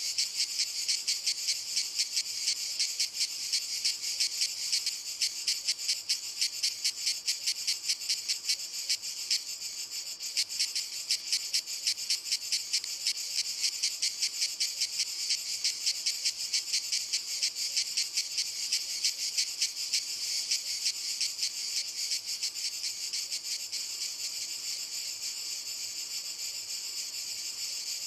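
Cicadas singing in chorus from walnut trees: a continuous high, shrill buzz with a fast pulsing rhythm of several pulses a second.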